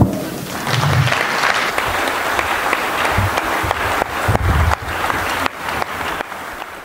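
Audience applauding: many hands clapping together, starting about half a second in and dying away near the end.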